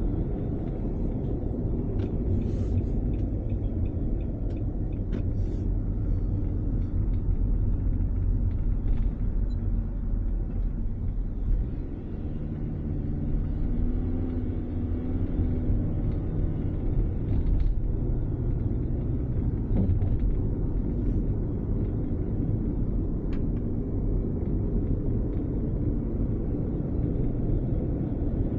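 Road and engine noise inside a moving car: a steady low rumble, with a faint engine hum in the middle and a few faint clicks.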